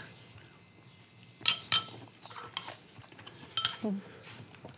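A metal spoon clinking against ceramic bowls during a meal. There are two clinks close together about a second and a half in and another about three and a half seconds in, each with a short ring.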